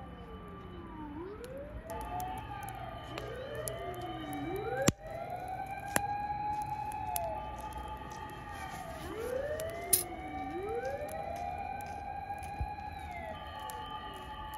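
Several emergency-vehicle sirens wailing at once, each rising, holding and falling again every few seconds, out of step with one another: fire engines, police cars and ambulances responding to a mountain wildfire. A few sharp pops cut through, the loudest about five seconds in.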